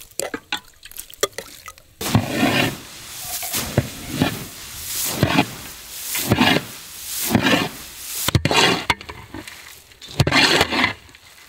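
Large batch of puffed-rice bhel mix being tossed with a long wooden paddle in a big pot: dry, crisp rustling swishes, one stroke about every second, starting about two seconds in.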